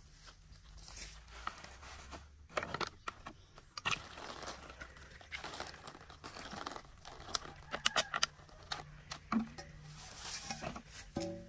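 Irregular rustling and crinkling with scattered sharp clicks and crunches, like something being handled and crumpled.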